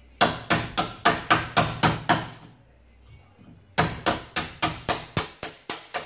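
Hammer striking the handle of a wood chisel cutting into the edge of a wooden door, two runs of about eight blows each at roughly four a second with a pause of about a second and a half between them. The chisel is squaring off the mortice for a door lock.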